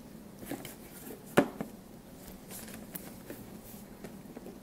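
Handling of a DVD box set: one sharp tap or knock about a second and a half in, then soft scratches and light taps of fingers on the box as it is turned.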